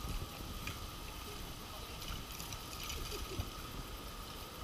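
Street ambience on a rain-wet cobblestone street: a steady wash of noise with irregular low rumbles, the strongest at the very start and about three seconds in.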